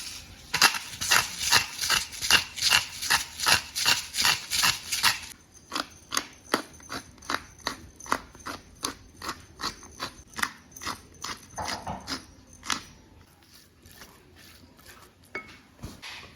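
Knife cutting on a cutting board: a steady run of sharp knocks about three a second, loud at first, turning softer about five seconds in and stopping near the thirteen-second mark, with a few stray taps after.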